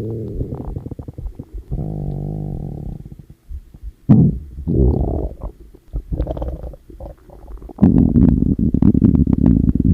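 Stomach growling and gurgling. A low rumble opens it, a drawn-out pitched growl comes about two seconds in, then a string of short bubbling gurgles, and a loud, continuous rumble fills the last two seconds.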